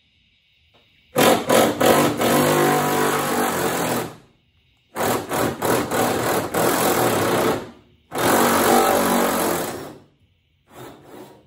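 Cordless impact wrench hammering in three bursts of two to three seconds each, with a short fainter burst near the end, as it loosens the fuel tank's strap bolts.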